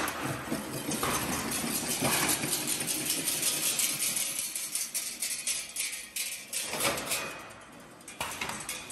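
SVR Spider automatic chain link fence machine running: rapid, rhythmic metallic clicking and clatter from the wire-spiralling and weaving mechanism, which eases off briefly near the end.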